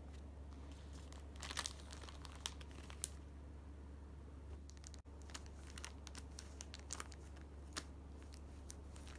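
Crinkly plastic cat-toy packaging crackling in short, scattered bursts as it is pawed and handled, over a steady low hum.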